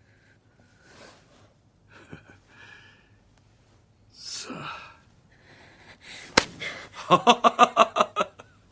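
Breathy sounds and a gasp, then a sharp click and a loud burst of rapid laughter near the end: a man laughing in quick pulses, about eight a second, for just over a second.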